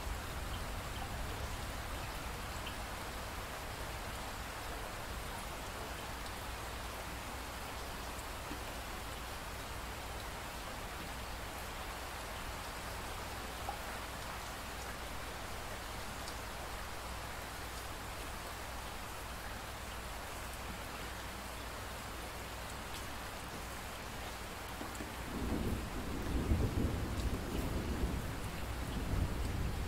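Steady rain falling, with a low rumble of thunder rolling in near the end.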